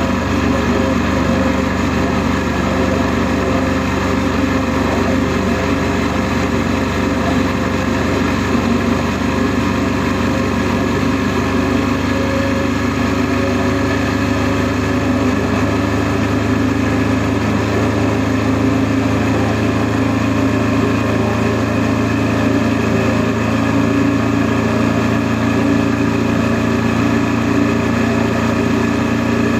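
Honda NC700S motorcycle's parallel-twin engine running at a steady cruise, its pitch drifting gently up and down with small throttle changes.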